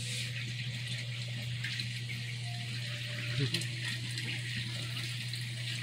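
Steady hiss over a low hum, with a brief faint squeak from a two-week-old German Shepherd puppy about three and a half seconds in.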